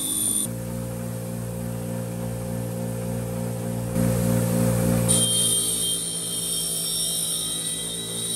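Bench grinder motor running with a steady hum while a steel tube is pressed against its wire wheel to strip paint; the brushing noise changes as the tube is moved, loudest for about a second midway.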